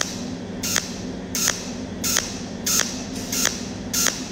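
Cold welding machine spot-welding with a tungsten-electrode torch: a short sharp zap of the arc about every 0.7 seconds, six in a row, each pulse laying one spot that overlaps the last. Under the zaps runs a steady low hum.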